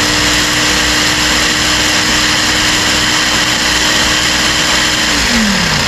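Ninja blender motor running at full speed, grinding dried ancho peppers into powder with a dense, gritty whir. About five seconds in the motor is switched off, and its pitch drops as it winds down.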